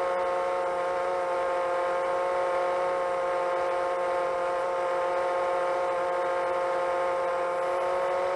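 Motors and propellers of a 7-inch long-range FPV quadcopter whining steadily at cruise, holding an even pitch.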